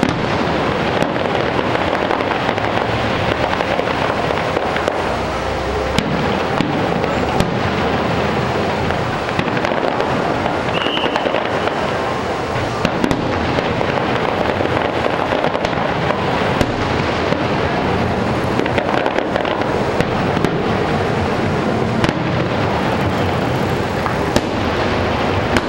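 Fireworks going off in a dense, continuous barrage: a steady wash of booms and crackling with many sharp cracks scattered throughout.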